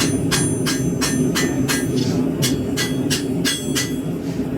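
Hand hammer striking hot 1075/1080 high-carbon steel on an anvil, forging a knife point: quick ringing blows about three or four a second, a brief pause near the middle, then a second run that stops shortly before the end. A steady low rumble runs underneath.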